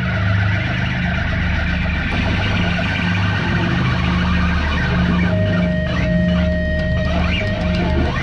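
Instrumental rock music: guitar over a steady bass line. A long held high lead note comes in about five seconds in and bends upward near the end.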